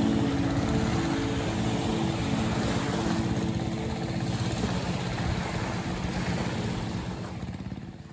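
A small boat's engine running steadily out on the water, fading away near the end.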